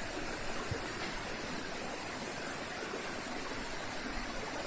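Stream water pouring down over rock at a small monsoon-fed waterfall, a steady rushing.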